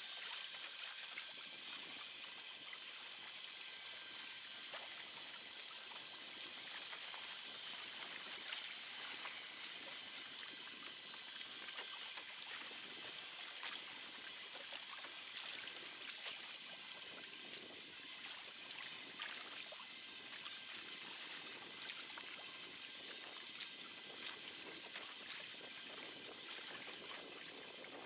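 Water trickling and lapping, an even hiss with faint scattered ticks, steady throughout, with a faint steady high tone underneath.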